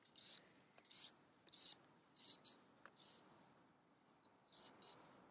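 Faint, short scraping strokes from something worked by hand, about seven of them, roughly one every two-thirds of a second with a short gap about three and a half seconds in. Under them runs a steady, high chirping of crickets.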